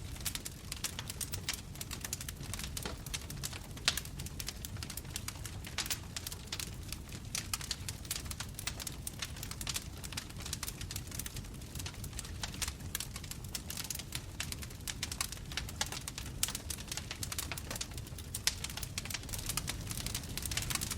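Bonfire crackling: a dense run of small wood pops and snaps over a low rumble of flame, with one sharper pop about four seconds in.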